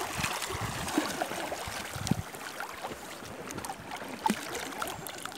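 Shallow seawater splashing and sloshing around a person who lies back to float, with small irregular splashes.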